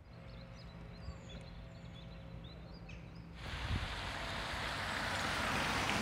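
Faint outdoor ambience with a few small bird chirps over a low hum; about three and a half seconds in, a steady rushing noise sets in and slowly grows louder.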